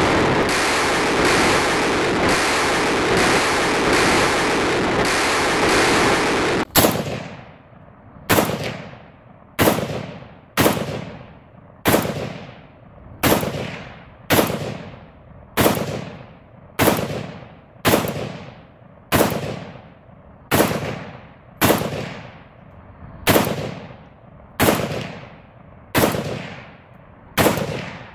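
A steady, dense rushing noise with a faint regular pulse for the first seven seconds, then an AKS-74U carbine in 5.45x39 firing single shots at a steady pace, about one a second, nearly twenty in all. Each shot is a sharp crack followed by a decaying echo.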